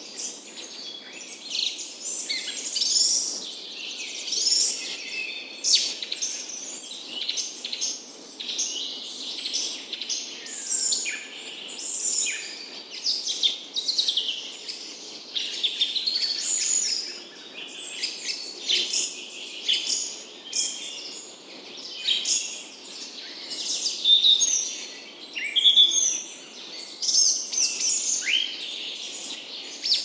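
Forest songbirds chirping and singing: many short, high calls and trills from several birds overlapping, over a faint steady background hiss.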